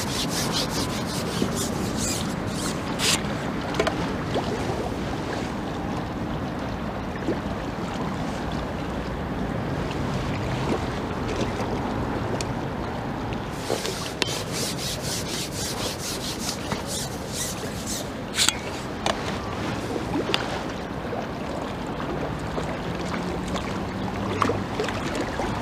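Steady wind and river-water noise, with two spells of rapid light clicking and rubbing, one at the start and one about midway.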